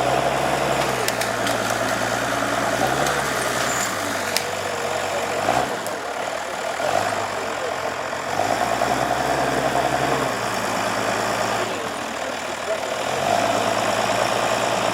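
Diesel engine of a forestry skidder running, its note stepping down and back up every few seconds. A brief knock sounds about five and a half seconds in.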